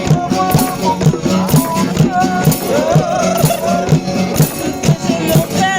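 Music with a steady beat, shaker or tambourine-like percussion and a wavering melody line.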